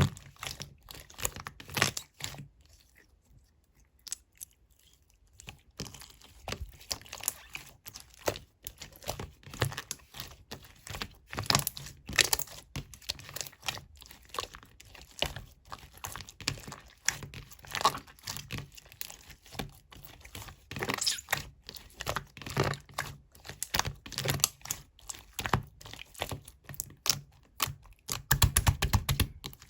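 Clear slime being squeezed and stretched by hand, giving rapid, irregular crackling and popping clicks, with a pause of a few seconds near the start.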